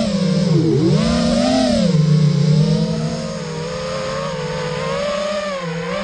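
FPV quadcopter's Emax 2205 2300 kV brushless motors spinning 5-inch HQ 5040 props, a buzzing whine whose pitch follows the throttle: a sharp dip under a second in, a swell back up, then a fairly steady pitch.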